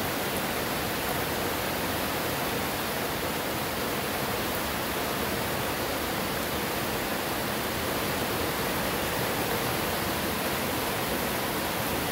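Heavy rain downpour: a steady, dense hiss of rain falling, with no let-up.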